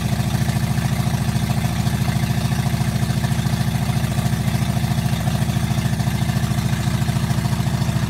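Newly installed Ford 272 Y-block V8 with tri-power carburetors idling steadily, with an even, rapid exhaust pulse and no revving.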